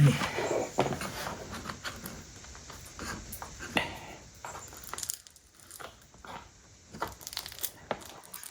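Thin crotch mahogany veneer being handled against tacky hide glue: crackling, crinkling and sharp little clicks, busiest for the first five seconds, then sparser.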